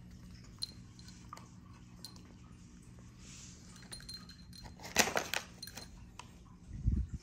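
Handling noise of a foil cat-treat packet as a kitten paws and licks at it: light scattered clicks and rustles, a loud quick run of clicks about five seconds in, and a low thump just before the end, over a steady low hum.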